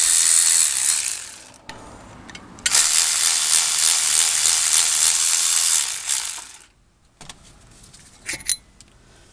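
Milwaukee M12 3/8-inch cordless electric ratchet whirring as it spins out the brake caliper's T55 Torx slide pin bolts. It runs twice: first until about a second and a half in, then for about four seconds from near the three-second mark. Near the end come a few light metallic clicks.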